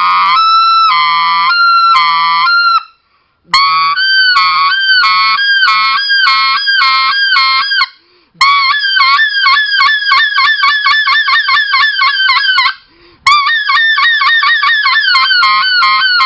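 RedBone specklebelly (greater white-fronted goose) call blown in four long runs of rapid, high two-note yodels, about four notes a second in the later runs. A low hum of the caller's voice (voiced air, the 'scratch') sounds under some of the early notes, and the rest are clear-air notes.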